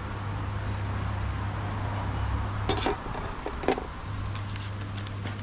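A steady low hum with a few sharp clinks of dishes near the middle. The hum drops away for about a second just after the clinks.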